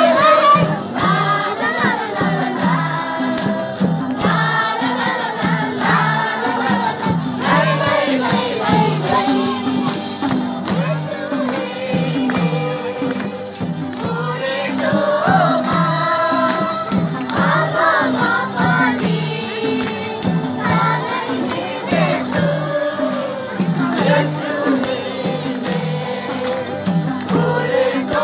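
A crowd singing a worship song together over a steady beat, with shaken percussion running through it.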